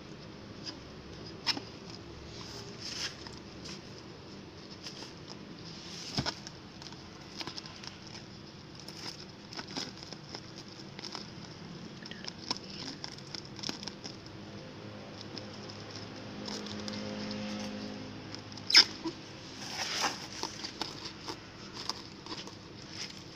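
Woven lashing strap being threaded through a metal wire buckle and drawn along plastic-wrapped cargo: scattered light clicks and rustling, with one sharp click about three-quarters of the way through.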